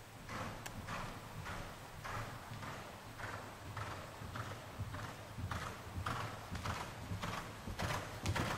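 Canadian Warmblood horse cantering on soft arena footing: a steady rhythm of muffled hoofbeats, about two strides a second.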